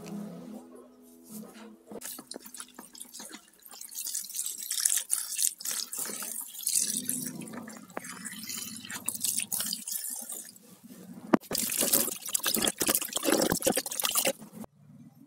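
Water splashing and dripping as bean sprouts are swished and rinsed by hand in a plastic colander set in a plastic basin of water. The splashing grows louder for the last few seconds, then stops abruptly.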